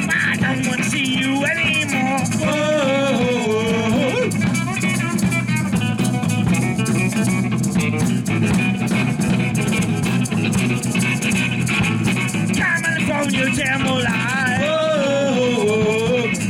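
Live garage punk band playing: electric guitar and bass over a drum kit with a shaking, rattling top end. A wavering lead melody line comes in twice, near the start and again near the end.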